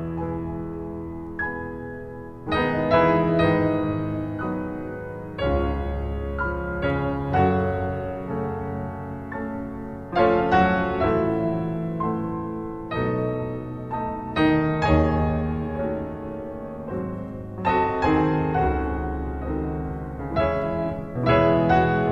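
Slow, gentle piano music: chords struck every second or two, each left to ring and fade, over low bass notes.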